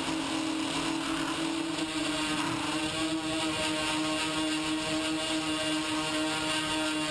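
TBS Discovery quadcopter's brushless motors and propellers buzzing steadily in forward flight, heard from the onboard camera, with a steady hiss underneath.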